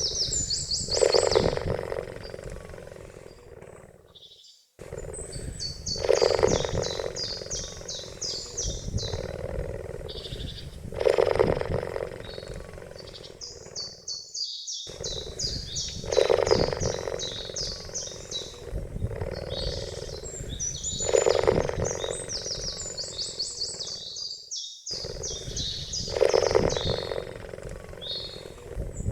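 A cheetah calling: a loud call about every five seconds, six in all, over rapid high-pitched chirping trills.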